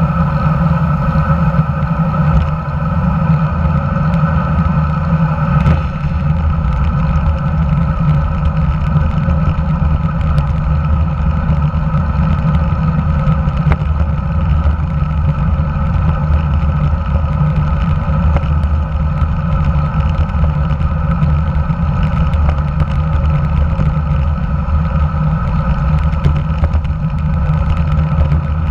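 Steady wind buffeting on a handlebar-mounted camera of a road bike riding at speed, a heavy low rumble with road and tyre noise underneath.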